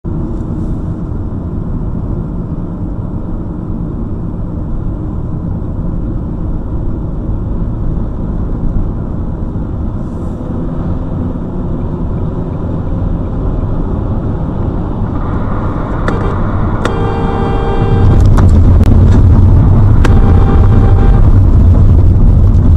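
Road and engine noise of a car driving on a highway, heard from inside the cabin through a dashcam. It gets markedly louder about three-quarters of the way in, and a long pitched tone, like a horn, sounds over it for a few seconds.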